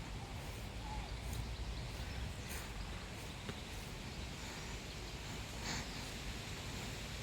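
Faint outdoor background noise: a steady low rumble with a few soft ticks scattered through it.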